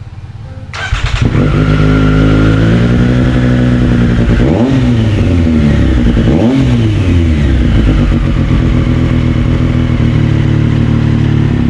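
Triumph Street Triple RS inline three-cylinder engine, breathing through an Akrapovic slip-on exhaust, starting up about a second in and settling into an idle. It is revved twice around the middle, each time rising and falling back, before idling steadily again.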